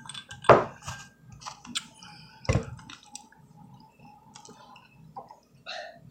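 Close-up eating sounds: wet mouth smacks and chewing clicks, with two sharp louder knocks, about half a second and two and a half seconds in.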